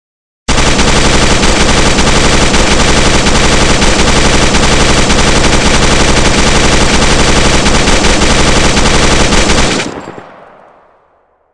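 PKM belt-fed 7.62×54mmR machine gun firing full auto in one long continuous burst of about nine seconds. It stops abruptly and the echo dies away.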